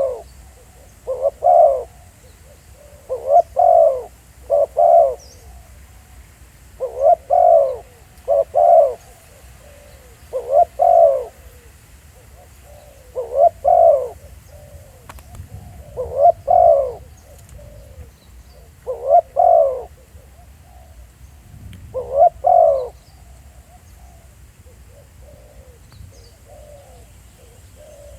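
Spotted dove cooing: a loud multi-note coo phrase repeated every two to three seconds, with fainter coos from another dove in between. The calling stops for several seconds near the end.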